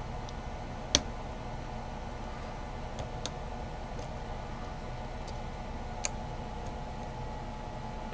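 Lock pick and tension wrench working the pin tumblers of a Kryptonite 851219 padlock: a handful of scattered sharp clicks as pins are lifted and set, over a steady faint hum.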